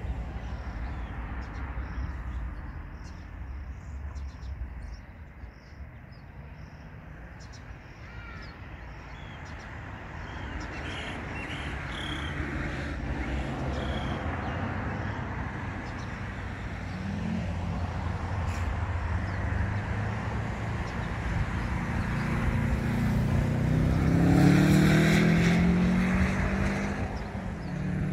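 A motor vehicle's engine running low and steady, then accelerating about three quarters of the way through, its pitch rising and the sound growing louder before it eases off near the end.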